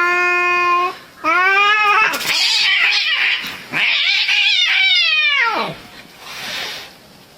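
Cats yowling at each other in an aggressive standoff: three loud, drawn-out wails, the last bending down in pitch at its end, with a rough hissing stretch between the second and third.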